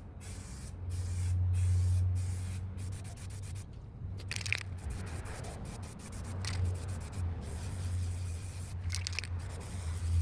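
Aerosol spray paint can spraying primer in many short hissing bursts, some longer and louder, over a steady low hum.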